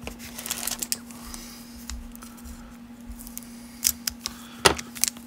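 Crackle and clicks of a plastic-wrapped cello pack of baseball cards being picked up and handled, with a couple of sharper clicks about four seconds in. A faint steady hum runs underneath.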